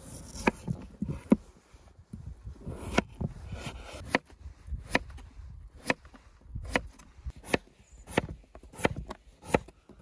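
Kitchen knife cutting peeled raw potatoes on a wooden cutting board: about a dozen unevenly spaced cuts, each ending in a sharp knock of the blade on the board, with a soft slicing sound between the knocks.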